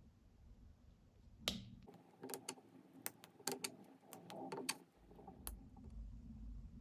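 Small hard pieces being handled: a brief scrape, then a quick run of about a dozen light, sharp clicks and taps over a couple of seconds, and one more click a little later.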